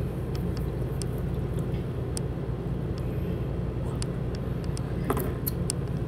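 A steady low hum with scattered light clicks and rustles, the strongest cluster of clicks about five seconds in.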